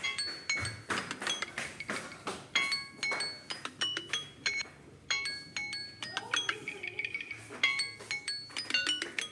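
Samsung Galaxy A04s alarm ringtone playing: a quick melody of short, bell-like chiming notes repeating.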